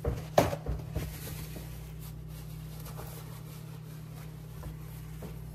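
A metal fork clinks and knocks against a glass mixing bowl of marinated chicken a few times in the first second. After that only a steady low hum and a few faint ticks remain.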